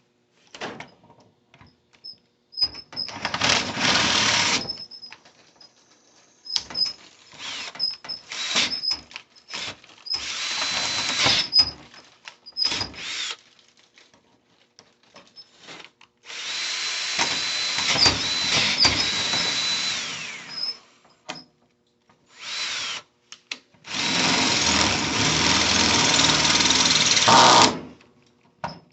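Electric drill boring into a steel safe with a titanium-coated high-speed steel bit. The trigger is pulsed: short blips and runs of a few seconds with pauses between them. The longest runs come about halfway through and near the end.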